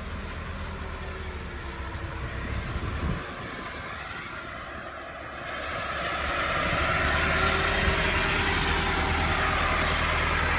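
Heavy diesel farm-machinery engines running steadily, getting louder about halfway through and holding there.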